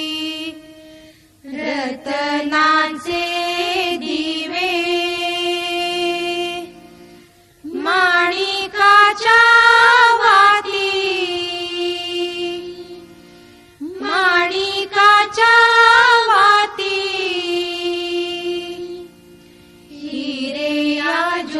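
Mangalagaur devotional song: a singing voice carrying long, gliding melodic phrases over a steady sustained accompaniment, with brief breaks between the phrases.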